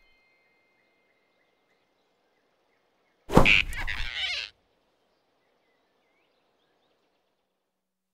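A sudden loud whoosh and thump about three seconds in, lasting about a second: the cartoon rabbit snatching a flying squirrel. The rest is very faint forest ambience.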